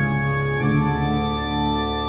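Pipe organ voice of a Yamaha PSR-S910 arranger keyboard playing sustained chords, moving to a new chord about half a second in.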